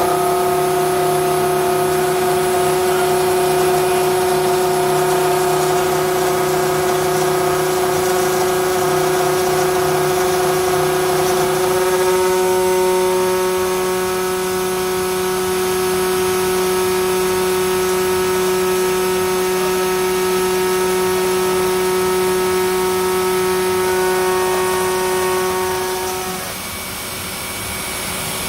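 Milling machine cutting an aluminium profile: a steady whine made of several even tones. The tones shift about twelve seconds in, and the cutting stops a couple of seconds before the end.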